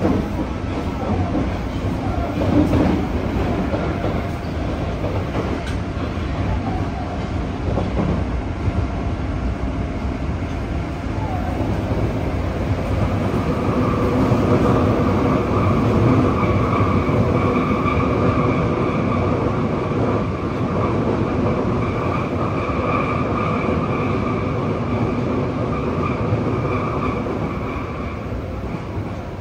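Interior running sound of a Yokohama Municipal Subway 3000R car (Mitsubishi IGBT-VVVF control) travelling through a tunnel: a continuous rumble of wheels on rail. About halfway through it gets louder, and a steady high whine that holds its pitch comes in, then fades near the end.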